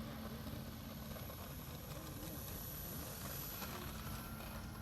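A distant motor hum with a thin, steady high whine, over a rumble of wind on the microphone.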